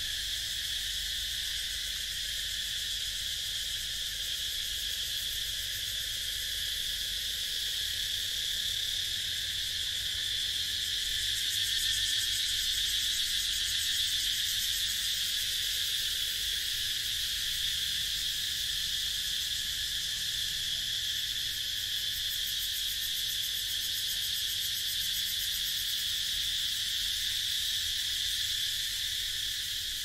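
Dense, unbroken chorus of tropical insects: a steady high-pitched buzz that swells slightly about twelve seconds in.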